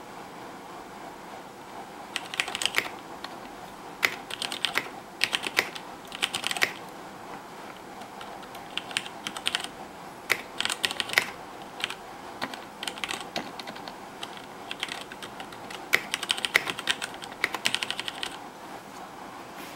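Typing on a KBC Poker mechanical keyboard with Cherry MX Red linear switches and Ducky keycaps. Quick runs of keystroke clacks start about two seconds in and stop and start in short bursts.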